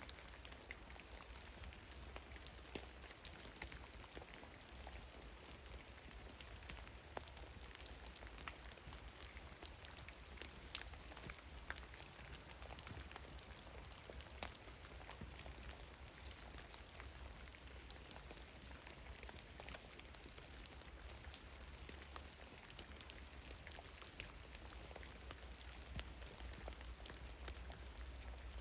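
Drops of meltwater from heavy, melting snow falling through the forest and pattering irregularly, with a few louder, sharper drops among many faint ones over a soft steady hiss.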